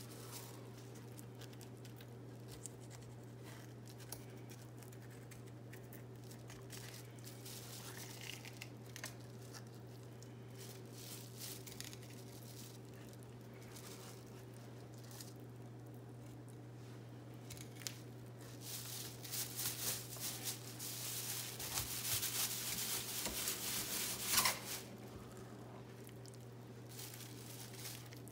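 Filleting a pigfish with a thin knife on a plastic cutting board: small scrapes and clicks of the blade along the fish, then a louder stretch of rasping, tearing scraping with plastic sheeting crinkling from about two-thirds of the way through, sharpest just before the end. A steady low hum runs underneath.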